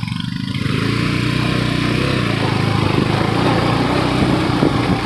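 KTM 250 Duke's single-cylinder engine running under load on a rough dirt track, growing louder about a second in and then holding steady under a broad rushing noise.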